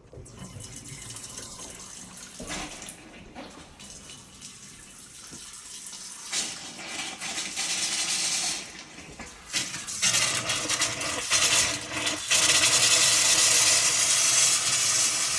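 Water running from an opened hot-water hose tap, faint at first and growing louder in steps, full and steady for the last few seconds. The hot side is opened so air can escape while the water heater tank refills.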